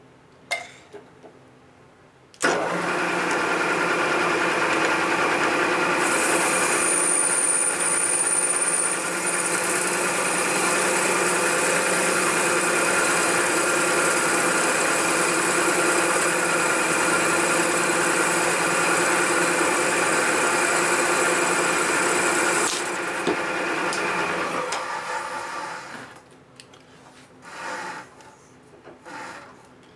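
Milling machine spindle switched on about two and a half seconds in, turning a boring head whose bar cuts the outside of the welded exhaust spigot on a Harley-Davidson panhead cylinder head. It runs with a steady hum, and a higher hiss joins about six seconds in. The sound stops near 23 seconds as the spindle winds down, followed by a few light clicks.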